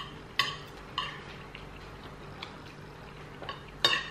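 Forks and a knife clinking on ceramic dinner plates while eating: a handful of light, ringing clinks, the loudest near the end.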